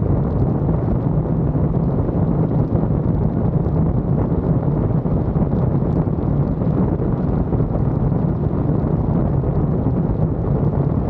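Steady, loud wind noise buffeting the microphone, a continuous low rumble with no breaks.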